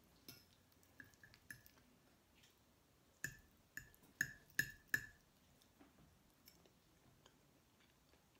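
Metal fork clinking against a plate while twirling spaghetti: a few light clinks, then about three seconds in five sharper clinks in quick succession, each with a short ring.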